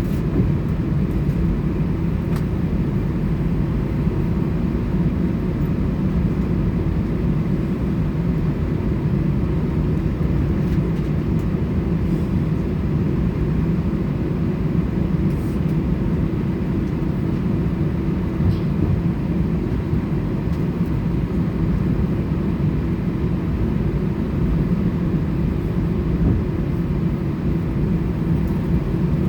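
Steady low rumble and hum of an Airbus A320 heard from inside the passenger cabin, with an even level throughout.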